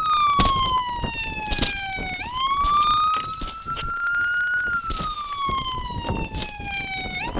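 Police car siren on wail, its pitch sliding slowly down, sweeping back up about two seconds in, then falling again near the end, with several short knocks over it.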